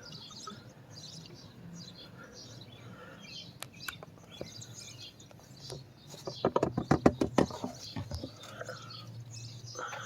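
Birds chirping in the background, with a quick run of rapid clicks or rattling knocks about two-thirds of the way through, the loudest sound here.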